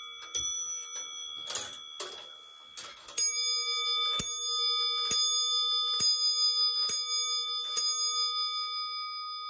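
Morbier clock movement being set going: a few handling clicks, then about three seconds in its large bell is struck and keeps ringing, with sharp, evenly spaced beats from the movement about once a second.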